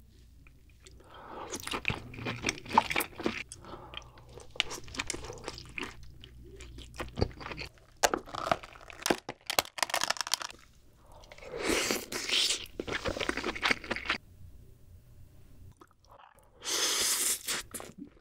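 Close-miked eating sounds of a cooked king crab: shell cracking and crunching, meat pulled apart and chewed, in a series of short segments that cut off suddenly, with brief quiet gaps between them.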